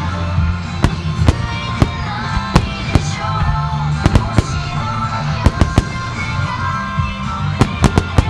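Aerial fireworks bursting in a starmine barrage, a quick irregular run of sharp bangs, several in close clusters, over music with a steady beat.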